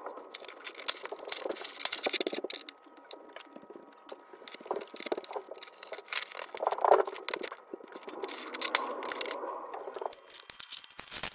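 Rustling, scraping and small clicks of items being handled and set out by hand, uneven throughout, with a louder scrape about seven seconds in.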